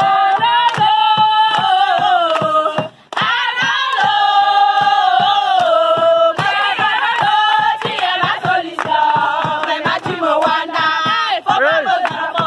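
A group singing a song together, with steady rhythmic hand clapping. The sound cuts out briefly about three seconds in.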